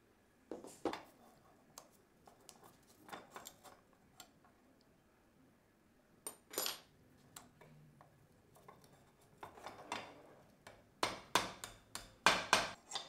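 Rusty steel pistol parts clinking against a small steel bench anvil as they are handled, a few separate clinks, then a quick run of hammer taps on a part on the anvil about eleven seconds in, the loudest sounds.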